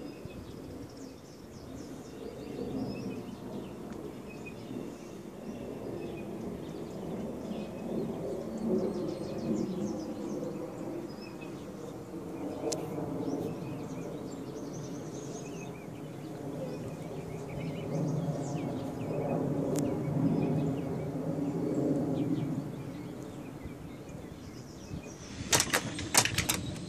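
Outdoor background noise, a low rising-and-falling rumble, with faint bird chirps. Near the end comes a quick run of sharp taps or clicks.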